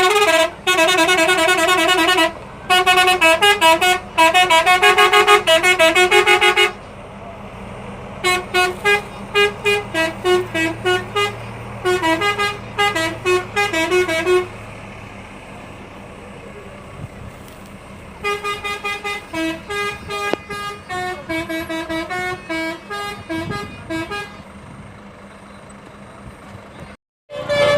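Basuri telolet multi-tone bus horn playing quick tunes of short notes in several runs, loudest in the first seven seconds, with a lull in the middle.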